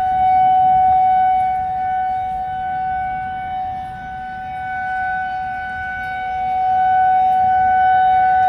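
Outdoor tornado warning siren sounding a steady, unchanging tone. Its loudness slowly swells and fades: loud about a second in, softest around the middle, louder again near the end.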